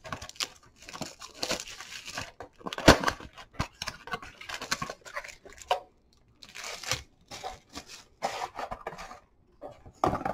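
2019 Bowman Chrome baseball card packs and their foil wrappers crinkling and tearing as they are handled and opened, in irregular rustling bursts with brief pauses.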